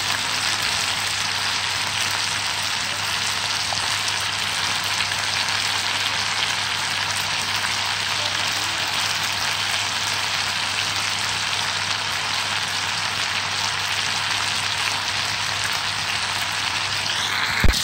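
Whole chicken frying in hot oil in a non-stick pan, a steady sizzle as it is browned. There is one sharp knock near the end.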